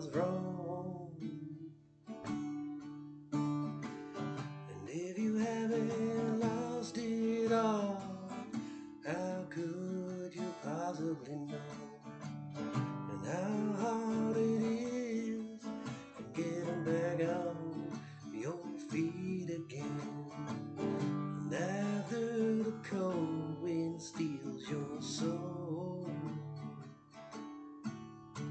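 Acoustic guitar strummed and picked in an instrumental passage of a slow song, with a melody line that bends in pitch over the chords.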